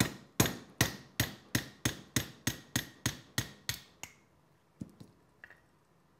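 Small mallet tapping a pin punch to drive the roll pin out of a Crosman 1377 air pistol's front end. About a dozen sharp, ringing metallic taps come at roughly three a second and stop about four seconds in, followed by a couple of faint clicks.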